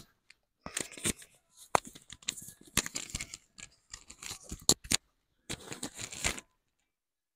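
Clothing rustling and scratching right at a microphone, in irregular scrapes and clicks, as fabric at the chest is handled. It cuts off to dead silence about a second before the end.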